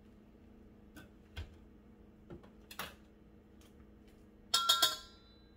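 Wire whisk striking a stainless steel mixing bowl: a quick run of four or so ringing metallic clinks about four and a half seconds in, after a few scattered light clicks of utensils being handled.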